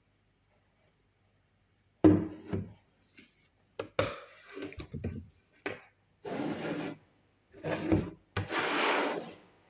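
Kitchen handling noises: a sharp knock about two seconds in, a few clicks, then several short stretches of noise, the longest about a second near the end, with dead silence between them.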